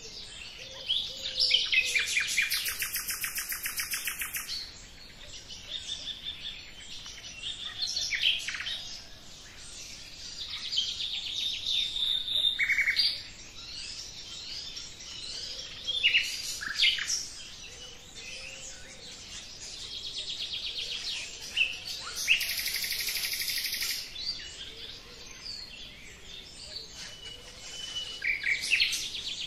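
Songbirds singing and calling, many short chirps and trills overlapping. Two longer, very rapid rattling trills stand out, one about a second in and another about two-thirds of the way through.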